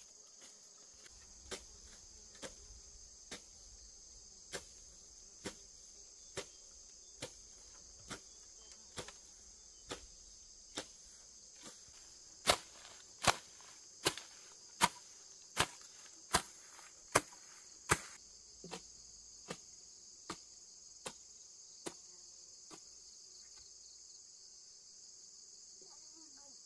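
A hand tool chopping again and again into grass and soil while the ground is being cleared. The strikes are sharp and evenly spaced, a little more than one a second, and much louder for about six seconds in the middle. Crickets keep up a constant high chirring underneath.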